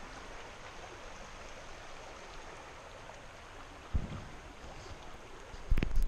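Creek water rushing steadily over stones. A low thump comes about four seconds in, and louder low thumps and rumble come near the end.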